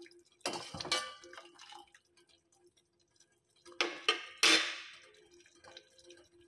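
Steel ladle clinking and knocking against a stainless steel pot of simmering sugar syrup: a few clinks about half a second in and another cluster around four seconds in, with faint bubbling between.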